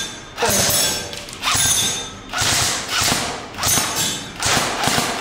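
Electric airsoft rifle fired in single shots, about one a second, each shot ringing briefly in the room.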